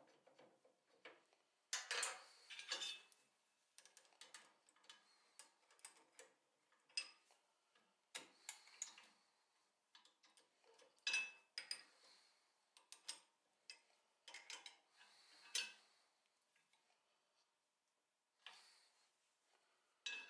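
Irregular light metallic clicks and clinks of a wrench working a hex nut and washer, clamping a V-block down on a steel drill press table.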